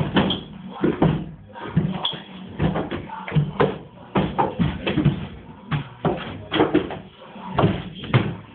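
A series of irregular knocks and thumps, roughly one or two a second.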